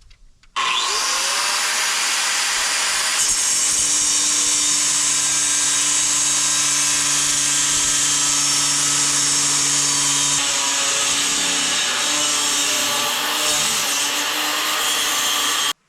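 An electric power tool cutting scrap metal. The motor spins up with a rising whine, and the cut grows harsh and bright about three seconds in as the blade bites into the metal. It runs steadily, then stops suddenly near the end.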